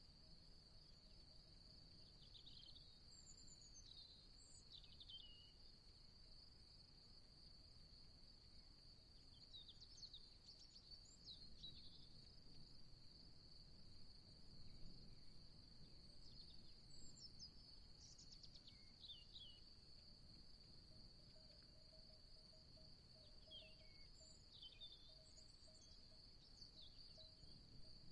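Faint outdoor ambience: insects trilling steadily at a high pitch throughout, with birds chirping in short bouts every several seconds, over a low rumble.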